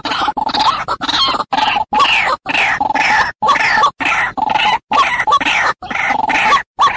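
White-breasted waterhen (ruak-ruak) calls, a recording played as a bird-trapping lure: loud, harsh calls that come in short bursts about twice a second, each cut off by a brief silence.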